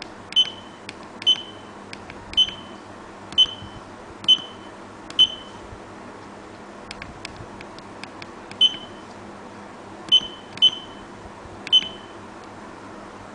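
About ten short, high-pitched beeps from a DIY Arduino alarm clock's buzzer, coming at uneven intervals, with faint clicks between them. The uneven spacing fits button-press feedback as the clock's menu is stepped through, not a ringing alarm.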